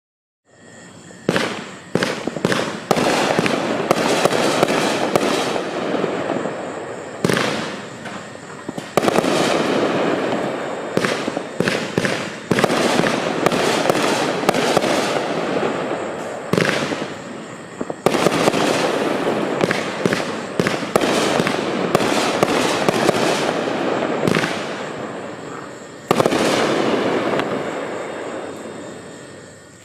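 A 24-shot consumer firework cake (Magnus Fireworks WD-44) firing its shots in quick succession: repeated sharp bangs over a continuous rushing noise from the burning effects. It goes on for about 26 seconds, then fades out near the end.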